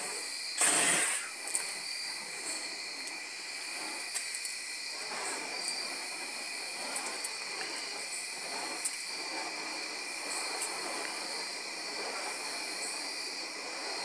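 Burning wicks of spun double fire staffs whooshing through the air, one loud close pass about a second in and fainter swells every second or two after. Crickets chirp steadily behind.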